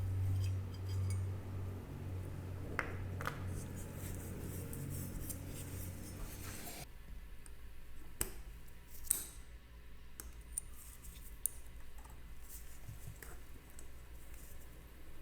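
Small metal parts being handled: scattered light clicks and clinks. A low hum runs under them for the first several seconds and cuts off suddenly about seven seconds in.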